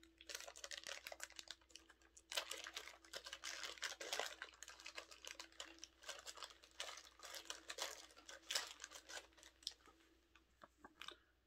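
Thin plastic packaging crinkling and crackling in the hands as a small bag is opened, in irregular crackles that thin out near the end.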